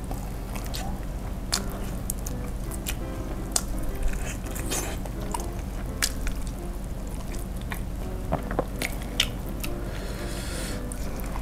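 Close-up wet chewing and biting on crispy fried chicken coated in Samyang hot sauce and sambal, with sticky smacks and crackly clicks scattered through, the sharpest about four seconds in. Soft background music with held notes runs underneath.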